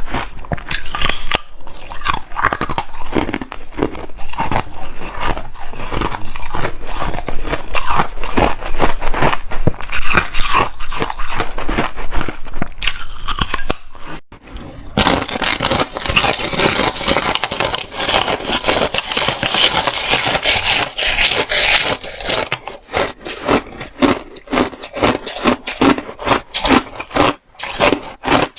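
Hard ice being bitten and chewed close to the microphone: loud, rapid crunching and grinding. About halfway through it turns into several seconds of dense, continuous crunching, then breaks into separate chews near the end.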